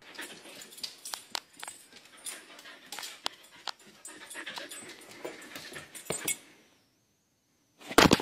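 A husky panting close to the microphone, with scattered clicks and rustles. After a brief pause, a short, loud burst of noise comes near the end.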